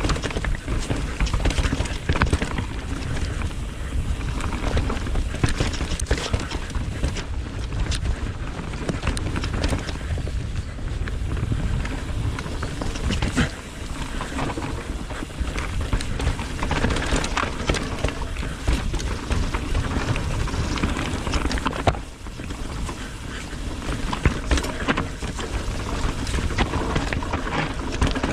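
Mountain bike riding fast down a dirt trail: tyres rolling over dirt and roots with the chain and frame rattling in many quick clacks, over a steady low wind rumble on the camera microphone.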